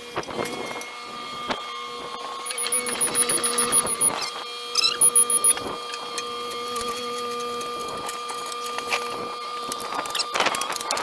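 A chain hoist rattling and clicking as it lifts heavy steel screens out of a horizontal grinder, with rapid bursts of metallic clicking about three and five seconds in. A steady machine hum runs underneath.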